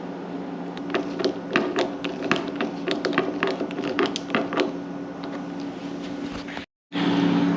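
Irregular light clicks and taps of hand tools and small metal hinge parts being worked and handled while fridge door hardware is taken off, over a steady low hum. The clicks bunch in the middle and thin out before a brief cut to silence near the end.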